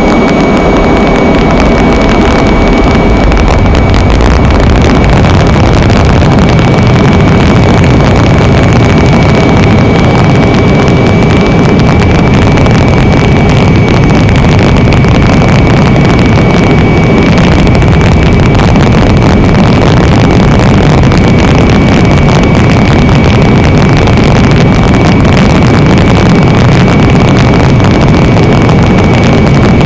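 Loud, steady engine and wind noise from aboard an aircraft in flight, with a constant high whine over it.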